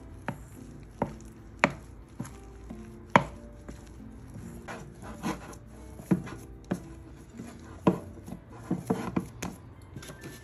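Irregular sharp knocks and clinks as a metal spoon and then hands work flour into a soft dough in a ceramic mixing bowl, about one knock every half second to a second.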